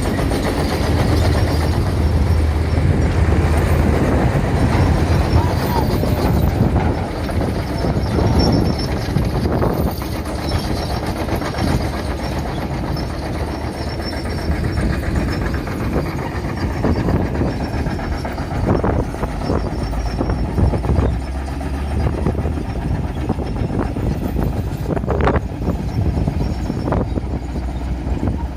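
Steady low rumble of passing vehicles, with a few short knocks scattered through it.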